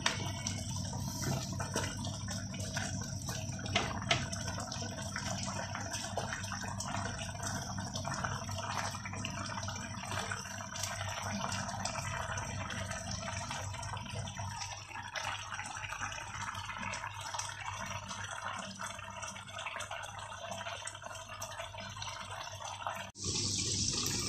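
Coconut-milk stew with squash and crab simmering in a pan, a steady bubbling with many small pops. A light knock about four seconds in; about a second before the end the sound changes abruptly to a louder, brighter hiss.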